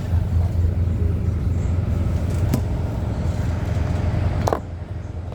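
City bus running, heard from inside the cabin: a steady low engine drone with road noise. A sharp rattle comes about halfway through and another near the end, and the running noise drops off after the second one.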